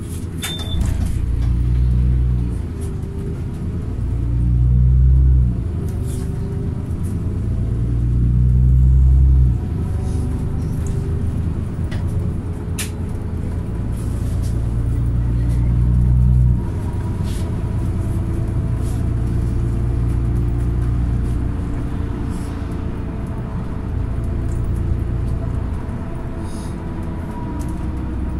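Bus engine and road noise heard from inside the moving bus: a low drone that swells and then drops back sharply three times.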